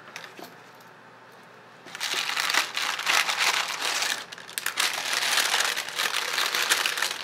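Wax paper wrapping crinkling loudly as it is lifted out of a cardboard box and unfolded. It starts about two seconds in, after a quiet start, and eases briefly a little past the middle.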